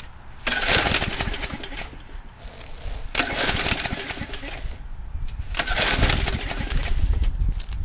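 Lawn mower engine cranked three times by its pull-start cord, each pull a brief burst of turning over that dies away without the engine firing: it has no fuel, the gas tank empty and the propane supply disconnected.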